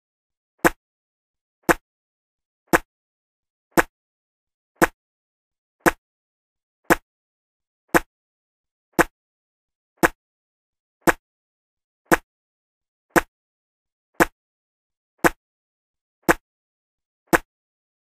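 A spit sound effect repeated about once a second: each one a short, sharp spit, with silence in between.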